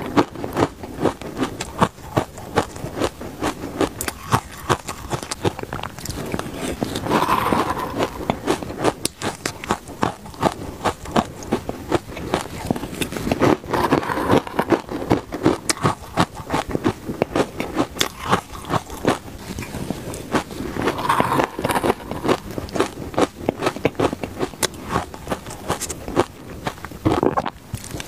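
Close-miked crunching and chewing of shaved ice heavily coated in sweet-potato powder: a dense run of crackling crunches, with a louder swell about every six or seven seconds.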